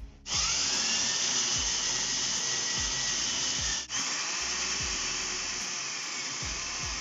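Cordless drill-driver running under load, driving self-tapping screws through the copper spacers behind the evaporator. Its motor whine rises as it spins up, stops for an instant about halfway, then runs steadily again.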